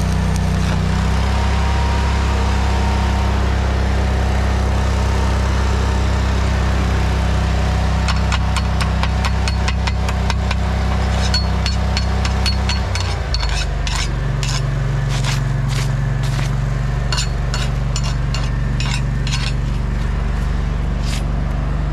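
Stick welding: the arc crackles and sizzles over the steady drone of the welding machine. About halfway through the arc stops and the drone changes pitch, and in the second half the hot steel plate and weld are tapped and scraped with a run of sharp metal clicks.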